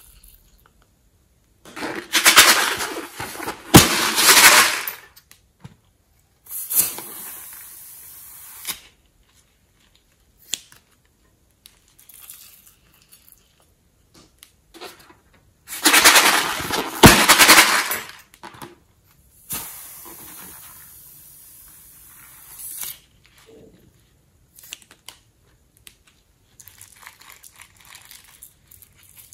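Sequins shaken out of small plastic tubes onto a bowl of slime, in two loud rattling bursts of a few seconds each, each followed by a softer, steady hiss.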